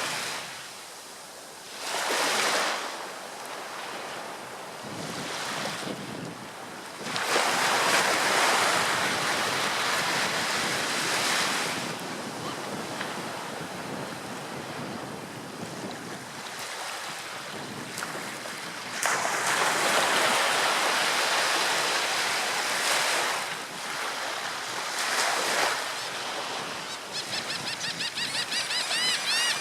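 Ocean surf: waves breaking and washing in surges that swell and ebb every few seconds. Near the end, a rapid series of high bird calls begins.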